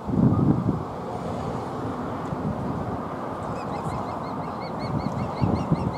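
Osprey calling at the nest: a rapid series of short whistled chirps, about four a second, starting about four seconds in. Underneath runs a low rumble that is loudest just after the start.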